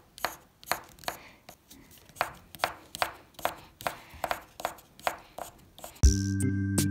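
Coloured pencil hatching on paper: short scratchy strokes, about two or three a second, as green is shaded in with quick back-and-forth lines. Music comes in about six seconds in and the strokes stop.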